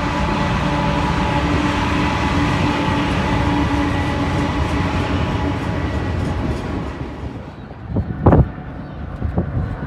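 Autorack freight train rolling past behind BNSF ES44C4 locomotives: a steady rumble of wheels on rail with a few held tones. The rumble fades about seven seconds in, and two sharp thumps follow about a second later.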